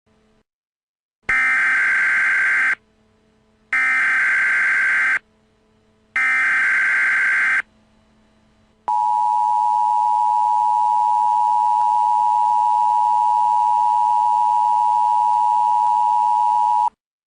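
Emergency Alert System tones: three bursts of SAME digital header data, each about a second and a half long, then the steady two-tone attention signal held for about eight seconds before it cuts off. The sequence marks the start of an emergency alert broadcast.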